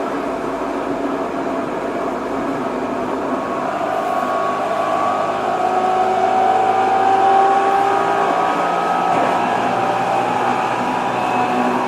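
Tokyo Metro 07 series train heard from inside the car while running between stations, its VVVF inverter-driven traction motors whining over the rumble of wheels on rail. Several whine tones slowly shift in pitch, and the sound grows a little louder around the middle.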